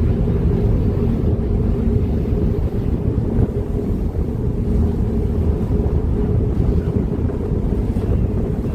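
Fast ferry under way: a steady low engine drone, with wind buffeting the microphone on the open deck.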